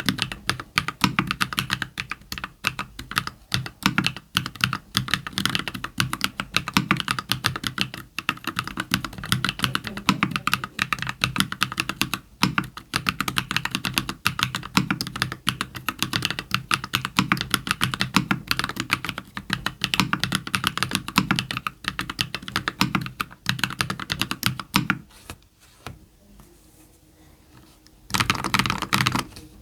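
Fast, continuous typing on a custom 60% mechanical keyboard (ilumkb Simpler60 with lubed JWK Cola switches on an aluminium plate, lubed Owlab v3 stabilisers and Aifei semi-transparent keycaps): a dense patter of keystrokes. The typing stops for about three seconds near the end, then a short quick flurry follows.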